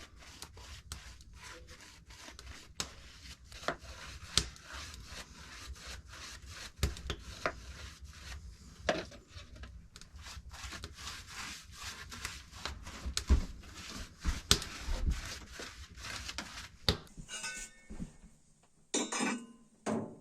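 Irregular rubbing and scraping with many light knocks and clicks, typical of hand work on wood. Near the end come two short, louder rasping sounds.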